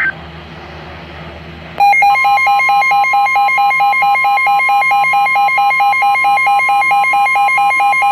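Weather radio alert: after a second or two of low radio hiss, a loud, evenly pulsing electronic alert beep starts, and a steady high tone of about 1 kHz joins it. The steady tone is the NOAA Weather Radio 1050 Hz warning alarm tone, which signals that a warning is about to be broadcast.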